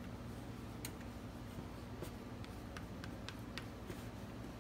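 Faint scraping and a few light clicks as a silicone spatula spreads melting butter around a small nonstick frying pan and the pan is shifted on a glass-top electric stove, over a low steady hum.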